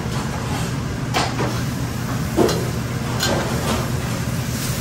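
Metal spatula clanking against a steel wok several times as noodles are stir-fried, over the steady low noise of a commercial gas wok range and kitchen hood.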